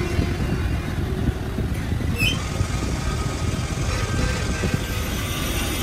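Crankshaft grinding machine running steadily, with a brief high squeak about two seconds in.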